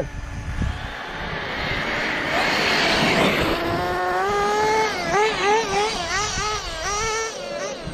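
Small nitro RC buggy engine (HoBao Hyper VS2) racing. A rushing noise comes first, then from about three seconds in the engine's high whine climbs in pitch and swings up and down again and again as the throttle is worked. The owner feels the engine is tuned a bit rich on the low-speed needle.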